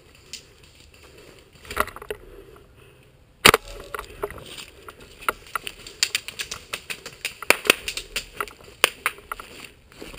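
Irregular crackling and clicking of movement over dry leaf litter and twigs, with tactical gear and the rifle knocking. One sharp knock about three and a half seconds in is the loudest sound.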